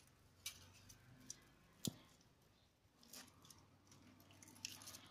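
Faint, scattered metallic clicks and taps as a spanner and the cast-metal bearing housing of a dismantled gearbox are handled, the sharpest click about two seconds in.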